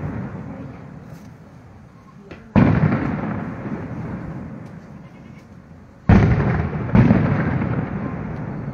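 Aerial firework shells bursting: a loud boom about two and a half seconds in, then two more close together about six and seven seconds in, each trailing off in a long rolling echo.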